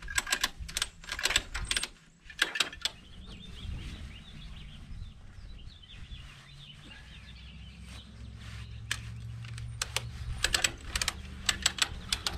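Ratchet strap being cranked tight, quick runs of clicks in bursts near the start and again near the end, with a low steady hum in between.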